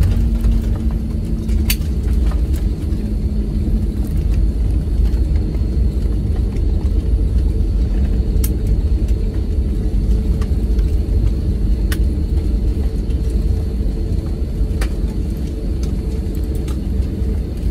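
Cabin noise of an Airbus A321neo rolling on the ground after landing, heard from a window seat: a steady low rumble of wheels and idling CFM LEAP-1A engines. A few light clicks sound now and then through it.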